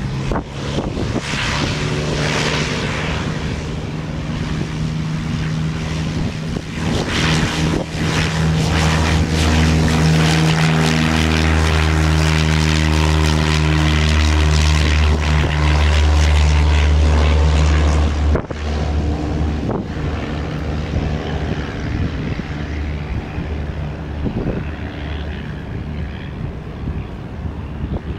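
Piper PA-28's single piston engine and propeller at full takeoff power, a steady drone that grows louder as the plane rolls past. It drops off sharply about two-thirds of the way through, then carries on fainter as the plane climbs away.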